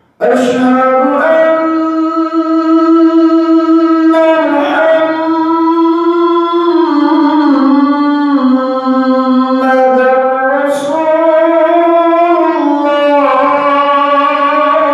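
A man chanting the adhan, the Islamic call to prayer, solo into a microphone. The chant starts suddenly just after the beginning and goes on in long held, ornamented notes that bend up and down in pitch.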